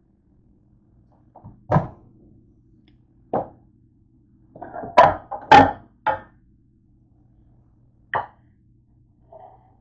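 Microwave door being opened and a plate lifted out and handled: a series of about six sharp knocks and clunks, the loudest two close together about five seconds in.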